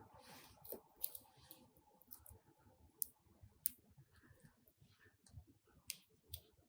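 Hands handling slime and plastic piping bags: scattered sharp clicks and crackles over faint soft rustling, the loudest about a second, three seconds and three and a half seconds in.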